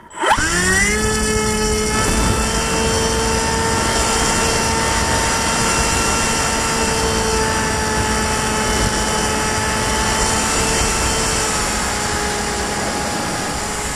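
Electric motor and propeller of a foam FPV model plane spinning up within the first half second to a steady high whine, with a rushing air noise underneath.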